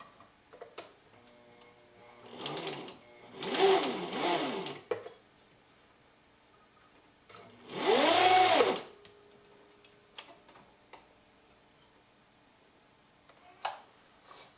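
Vintage sewing machine run in three short bursts, its motor speeding up and winding down each time. The drive belt is slipping, and the fabric is not feeding forward.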